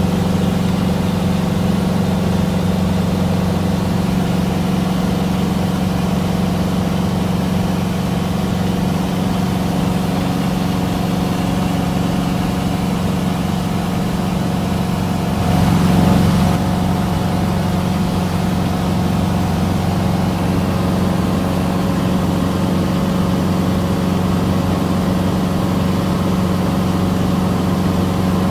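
Cessna 150's four-cylinder air-cooled Continental O-200 engine and propeller droning steadily in cruise, heard from inside the cabin. About halfway through there is a brief louder rush lasting around a second.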